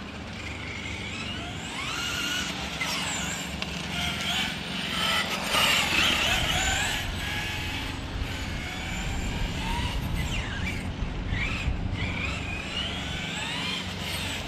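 Electric whine of a 1/5-scale MCD XR5 RC car's 20S SSS 230KV brushless motor, gliding up and down in pitch again and again as the car accelerates and slows, over a steady low rumble.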